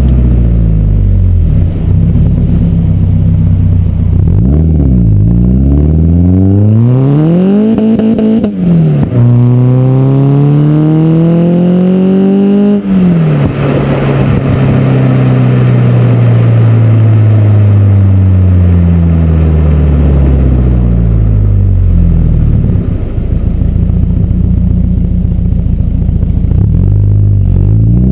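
Renault Clio 172's 2.0-litre four-cylinder heard through a decat and unsilenced KTEC exhaust, close to the tailpipe, as the car drives. The revs climb hard through a gear change about 7 to 13 seconds in, then wind down slowly on a lift-off with a crackling overrun, and rise again near the end.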